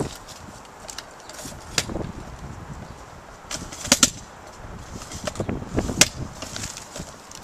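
Handling noise from a handheld camera being carried around: scattered sharp clicks and knocks over a low rustle, the four loudest about two seconds apart.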